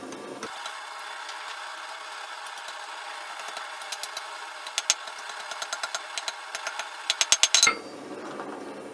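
Light hammer taps on hot mild steel at the anvil: sharp metallic clicks over a steady hiss, coming faster and louder until a quick run of strikes ends them suddenly near the end.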